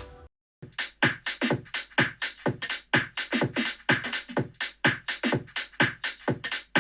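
Electronic dance music playing through a Tronsmart portable Bluetooth speaker in a sound test. A held chord cuts off right at the start, then after a brief silence a fast, punchy beat of about four hits a second comes in.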